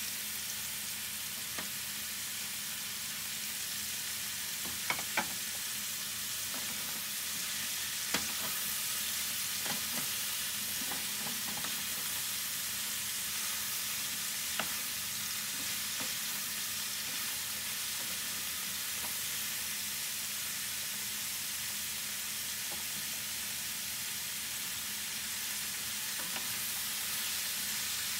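Mixed vegetables stir-frying in a pan, a steady sizzle as a wooden spatula turns them, with a few sharp knocks of the spatula against the pan in the first half.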